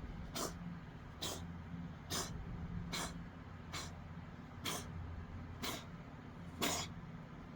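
Domestic cat hacking: a regular series of sharp, noisy expulsions of breath, about one a second, eight in all, the last one loudest. The owner is unsure whether it is coughing or retching.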